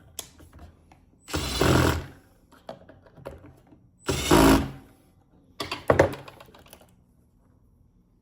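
Plastic casing and internal parts of a GE Simon XT alarm panel clattering and cracking as it is pulled apart by hand. There are three loud bursts of rattling with small clicks between them.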